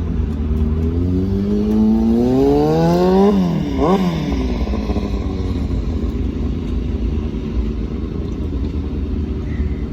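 A vehicle engine accelerates, its pitch rising for about two seconds, then dropping sharply. It rises and falls once more briefly, then settles into a steady low rumble.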